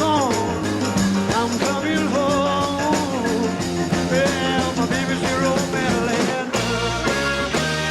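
Live rock recording: singing over a full band. About six and a half seconds in, the voices drop away and the band plays on with a heavier bass and drums.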